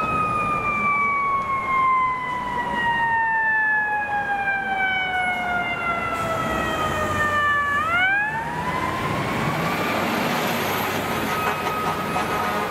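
FDNY fire truck's mechanical siren winding down, its wail falling slowly in pitch for about eight seconds. It then spins back up quickly and holds a high pitch, over the low rumble of the truck and street traffic.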